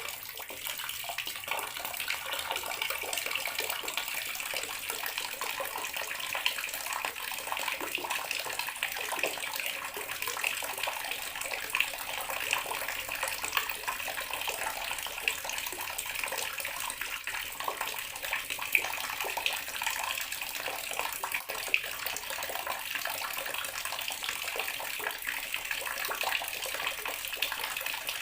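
Bathroom sink tap running steadily, a continuous stream of water splashing into the basin.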